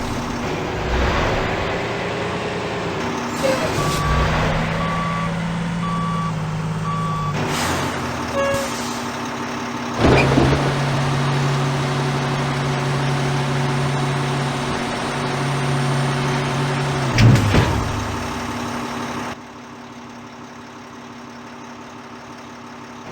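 Articulated hauler engine running steadily, with a reversing alarm beeping about four times a few seconds in. The engine note steps up about ten seconds in, and the sound drops sharply in level near the end.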